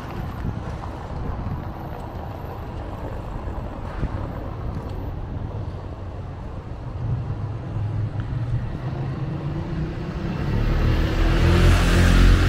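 A car driving past close by: a low engine hum and tyre noise swell over the last few seconds and are loudest near the end.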